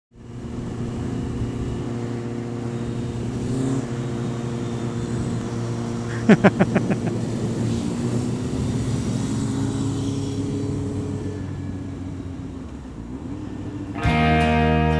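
Motorcycle engine running at a steady cruise under a rush of wind noise, heard from on the bike. About six seconds in comes a brief run of loud, rapid pulses, and guitar music comes in near the end.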